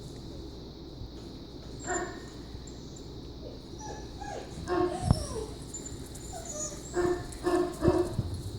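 German Shepherd puppies whimpering and yipping in short, pitched calls, some sliding down in pitch, with a quick run of yips near the end. A sharp knock about five seconds in.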